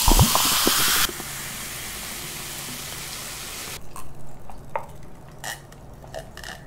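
Cola poured from a plastic bottle into a glass mug, fizzing loudly; about a second in the pour stops and the fizz goes on hissing more softly for a few seconds. Near the end come soft gulps and clicks as the cola is drunk.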